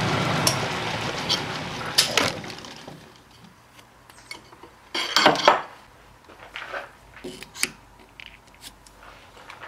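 Metal lathe spinning down and coming to a stop over the first three seconds after a facing cut on a cast iron part. Then scattered metallic clinks and clatters of steel tools being handled and a steel caliper set against the workpiece, the loudest clatter about five seconds in.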